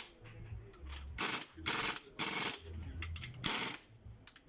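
Ratchet wrench clicking in short strokes, about four swings with a brief gap before the last, as the crankshaft main bearing cap bolts of a Land Rover TD5 five-cylinder diesel are tightened.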